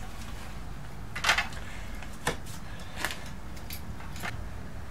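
A few short scrapes and taps of drywall being handled as the cut-out disc is pulled from a freshly sawn ceiling hole, the strongest a little over a second in, over a steady low hum.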